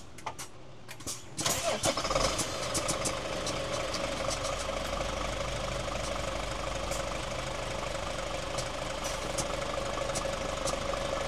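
An engine cranks and catches about a second and a half in, after a few sharp clicks, then settles into a steady idle.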